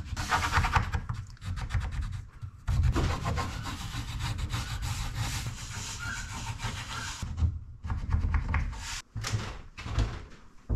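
Pencil scratching as it is drawn along the edge of a thin bamboo template, tracing its outline onto the wood beneath: a continuous dry rubbing for about seven seconds, then a few short scrapes and knocks.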